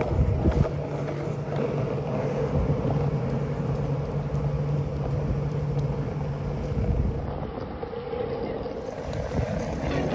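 Longboard wheels rolling over a coarse-textured asphalt path: a steady gritty rumble that eases briefly about eight seconds in.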